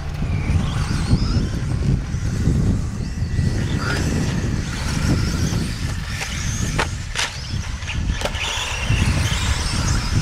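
Electric 1/10-scale RC off-road cars racing on a dirt track: a faint high motor whine that wavers as they speed up and slow down, over a low rumble, with two sharp clacks about seven and eight seconds in.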